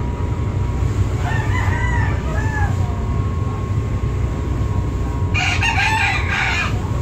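Steady low drone of a passenger ferry's engines, with a rooster crowing twice over it: once about a second in, and again, louder, near the end.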